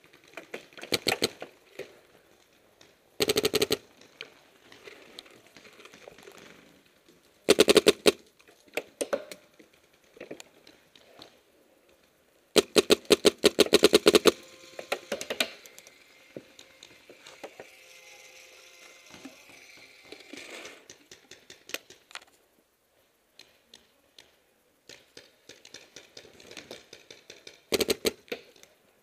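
Paintball markers firing in rapid strings of shots: about five volleys, the longest lasting about two seconds around the middle, with scattered quieter single pops between them.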